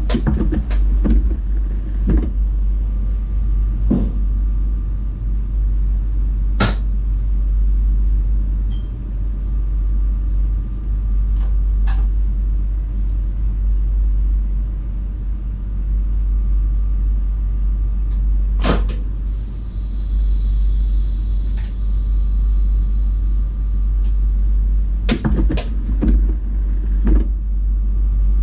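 Steady low rumble and hum inside a standing VIRM double-deck train's cab, with scattered sharp clicks and knocks and a brief hiss about two-thirds of the way through.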